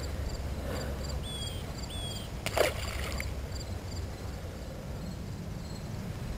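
Crickets chirping steadily, about three chirps a second, with two short falling whistles a second or two in and a brief rushing sound about two and a half seconds in.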